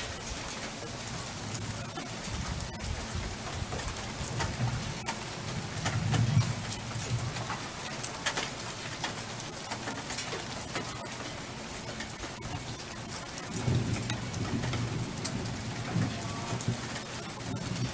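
Rain falling steadily, with many separate drops ticking over an even patter, as it picks up. Low rumbles of thunder swell about six seconds in and again about fourteen seconds in.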